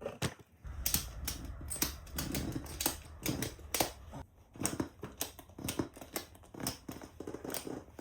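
Ratchet strap being cranked tight around a tire, a run of irregular metallic clicks and rattles with a low rumble underneath from about a second in. The strap is squeezing the tread so the tire's beads press out against the rim for inflation.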